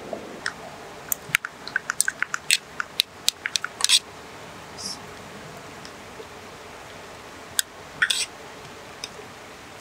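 Forks and spoons clinking and scraping against metal plates while eating: a quick run of sharp clinks for a few seconds, then a scattered few more near the end.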